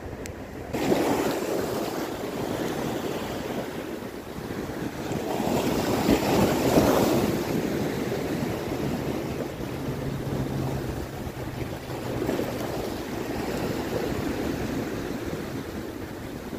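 Sea waves surging and breaking against shoreline rocks, a steady wash of surf that swells louder three times, about a second in, around six to seven seconds, and near twelve seconds.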